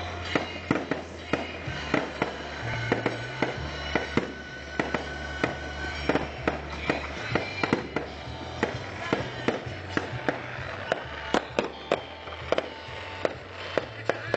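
Fireworks display going off in quick succession: sharp bangs and crackles, two or three loud reports a second, with a deep bass line of music underneath.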